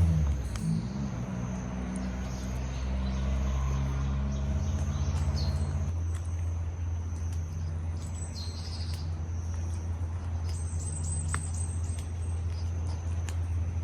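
A few faint bird chirps and a short high trill over a steady low hum.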